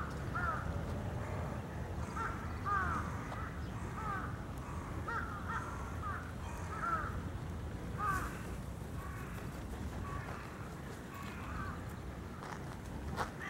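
Birds calling: a run of short, repeated arching calls, frequent for the first several seconds and fainter after, over a steady low rumble.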